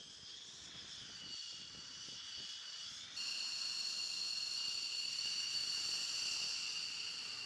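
F-15 Eagle fighter's twin jet engines running at taxi power: a steady high-pitched whine. It jumps suddenly louder about three seconds in.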